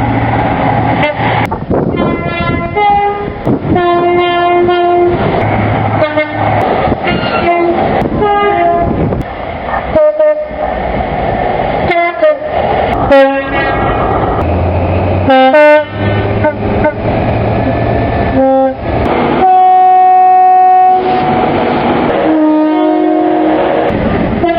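A run of British train horns from different locomotives and multiple units in quick succession, mostly short two-tone blasts, high note then low, over the rumble of passing trains. About twenty seconds in, one horn holds a longer steady note.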